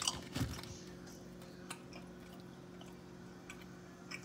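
Figs frying gently in olive oil in a pan, giving a few faint, scattered pops over a steady low hum, with a short low thud just after the start.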